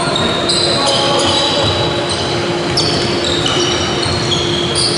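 Basketball game on a wooden sports-hall court: sneakers squeaking on the floor, many short high squeaks overlapping one another, with the ball bouncing, all echoing in the hall.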